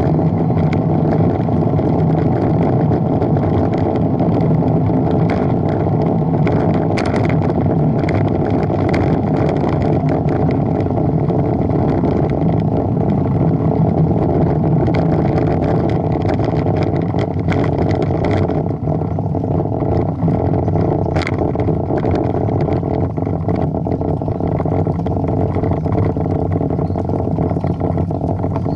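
Steady wind and road rumble on the microphone of a camera riding on a moving bicycle, with a few faint clicks or rattles.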